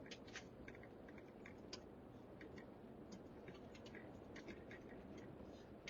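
Near silence: a faint low rumble with scattered, irregular light ticks and clicks.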